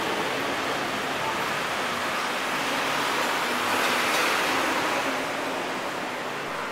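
A steady rushing noise with no distinct events, swelling slightly about four seconds in.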